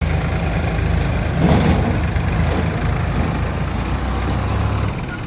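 Heavy diesel engine running steadily with a deep, rapidly pulsing drone, which eases a little near the end.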